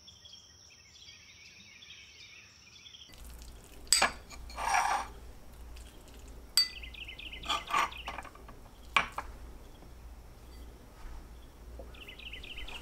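Small dish, glass jar and spoon clinking and scraping on a kitchen counter: a few sharp clicks and a short scrape over a low steady hum. Brief high chirping comes in twice. The first few seconds hold only faint high chirping.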